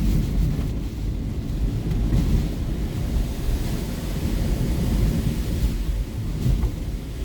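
Hurricane-force wind buffeting the microphone: a heavy, gusting low rumble.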